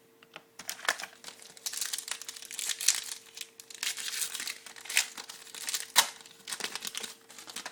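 Foil trading-card pack wrapper being torn open and crinkled by hand, a dense run of irregular crackling rustles.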